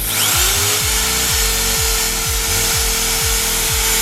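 Cordless drill driving a wire brush against a cast iron grill pan: the motor spins up at the start, its whine rising briefly and then holding steady, with a loud harsh scrubbing of steel bristles on iron. Background music with a steady low beat runs underneath.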